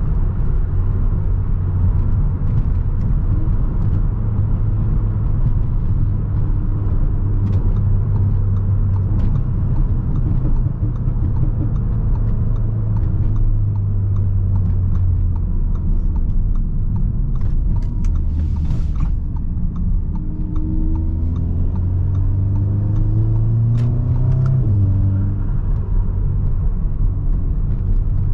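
Audi S3's turbocharged four-cylinder, running a Stage 2 tune with an aftermarket intake, turbo inlet and downpipe, cruising with a steady low drone and road noise. About twenty seconds in it pulls harder, its pitch rising for a few seconds, then drops abruptly at a gear change.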